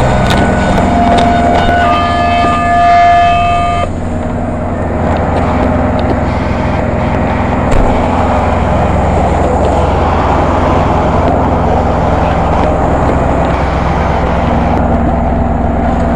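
Fire engine on the move, its engine and road noise a steady rumble. A level horn tone sounds for the first four seconds and cuts off, leaving only the engine and road noise.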